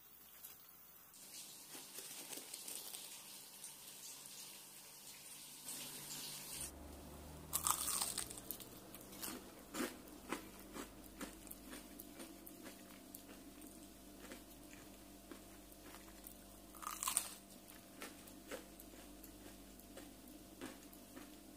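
Crisp breaded fried eggplant slices crunching, with a soft hiss in the first few seconds. Many crackles follow, with the loudest crunches about eight seconds in and again about seventeen seconds in.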